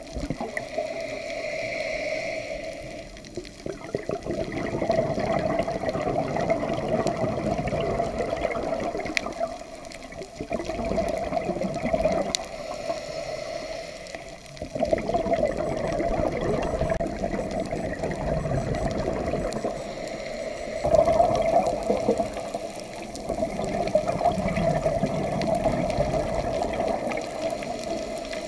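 Scuba diver breathing through a regulator underwater: exhaled air bubbling out in long stretches of several seconds, with short quieter gaps between breaths about every five seconds.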